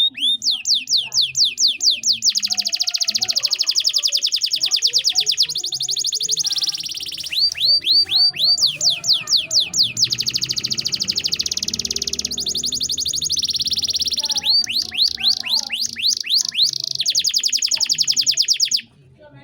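Male canary in full song: fast runs of repeated down-slurred trill notes, several a second, alternating with sustained rolling trills. The song cuts off abruptly near the end.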